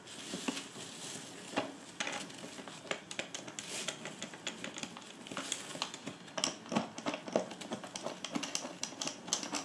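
Rustling of a suitcase's fabric liner as it is held back by hand, with many small irregular clicks and taps as screws and washers are fitted by hand into a plastic handle bracket.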